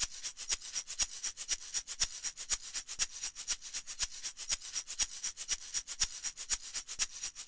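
Soundtrack music with the bass and guitar gone, leaving only a shaker playing a quick, even rhythm.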